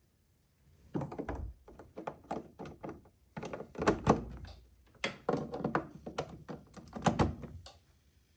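Handling noise: a close run of knocks, clicks and rattles with three heavier thunks, about a second in, in the middle, and near the end.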